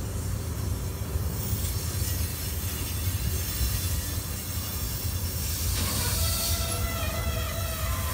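Freight train of Habbiins sliding-wall covered wagons rolling past with a steady low rumble and hiss. About six seconds in, a high, steady metallic squeal from the running gear sets in.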